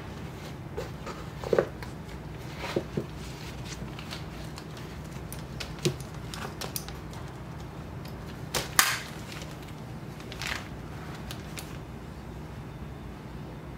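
Handling noises as a canvas tote bag is laid out and smoothed by hand: scattered soft taps and rustles and a few sharp clicks, the loudest a pair of clicks about nine seconds in, over a low steady hum.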